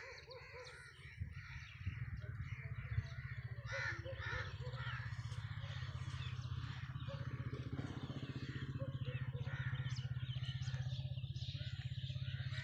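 Crows cawing repeatedly, with other bird calls, in the open countryside. Under them, from about two seconds in, runs a steady low rumble with a fast, even pulse of about five beats a second, which is the loudest sound.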